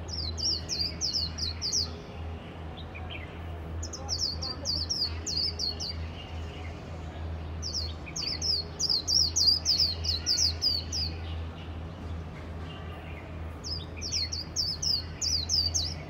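Japanese white-eye singing in four bouts of rapid, high, sweeping twittering notes, each one to three seconds long, over a steady low hum.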